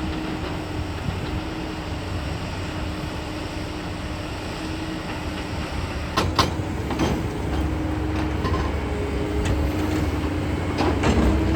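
Excavator's diesel engine running steadily with a low rumble, growing a little louder past the middle, with a few sharp knocks about six seconds in and again near the end.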